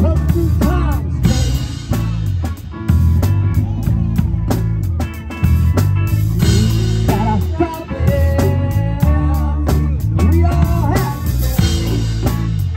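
A rock band playing live: drum kit with cymbal crashes, a heavy bass line and electric guitar.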